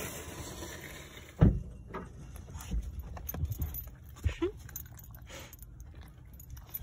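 Dogs shifting about on a car's back seat: collar tags jingling, rustling and knocks against the phone, the loudest a thump about a second and a half in, and a short rising whine about four and a half seconds in.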